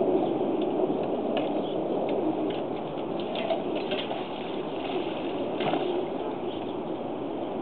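Shallow water splashing and sloshing as a person wades and pulls debris out of a muddy cove bed, with scattered faint short knocks over a steady background rush.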